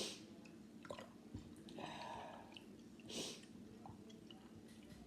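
Faint stirring of a honey, cranberry juice, lemon and ginger mixture: soft wet sounds and a few light clicks, with a short hiss about three seconds in.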